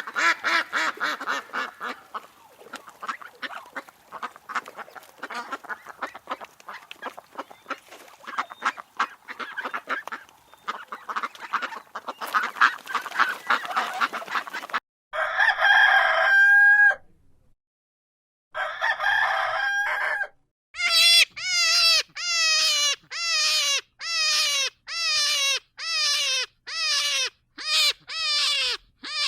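A run of poultry sounds: a flock of hens clucking busily for about fifteen seconds, then two long drawn-out calls, then a series of short, falling calls repeated a little faster than once a second.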